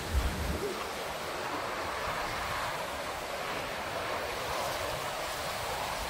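Sea waves washing onto a rocky shore with wind, a steady rush of noise. A brief low thump of wind buffeting the microphone comes right at the start.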